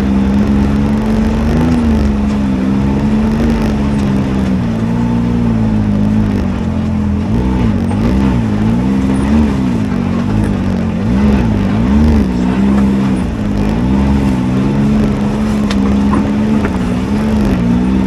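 Can-Am Maverick X3 side-by-side's turbocharged three-cylinder engine running while the machine is driven along the trail. The engine pitch holds steady at first, then rises and falls repeatedly in the middle as the throttle is worked on and off.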